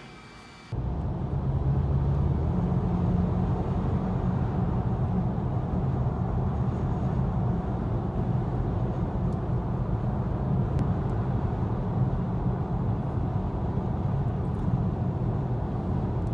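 Car cabin noise at highway speed: a steady low rumble of tyres and engine that starts abruptly less than a second in.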